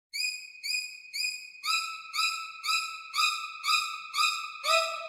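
Background music: a repeated, bell-like pitched note struck about twice a second, with a lower octave joining in about a second and a half in and another lower layer near the end.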